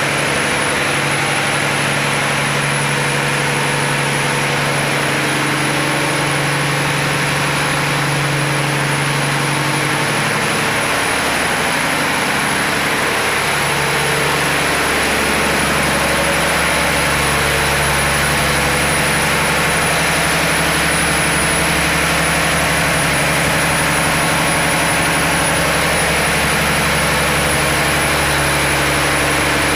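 Fishing boat's inboard diesel engine running steadily in the engine room: a loud, even drone with a thin high whine held over it. About eleven seconds in, the deep low rumble grows stronger.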